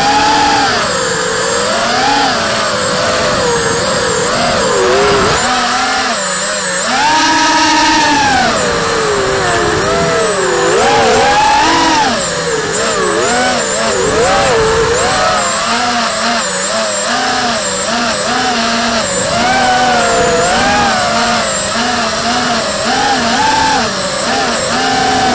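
Racing quadcopter's Emax RS2205 2300kv brushless motors and 5045 three-blade props whining, the pitch swooping up and down constantly with the throttle.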